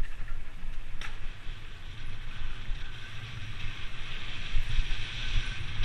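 Mountain bike descending a dry dirt trail at speed: wind buffeting the bike-mounted camera's microphone, with tyre noise and bike rattle, a sharp knock about a second in, and the hiss getting stronger over the last couple of seconds.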